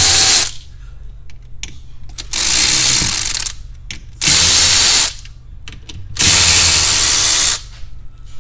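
Cordless electric ratchet running in four bursts of about a second each with short pauses between, spinning out the bolts on a hybrid battery pack's bus-bar boards.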